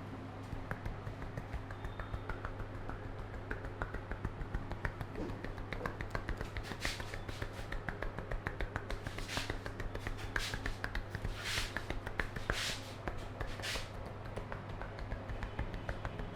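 Hands working a head massage: rapid, dense fingertip taps and pats on the scalp, with a few short swishes of hands rubbing through the hair from about seven seconds in.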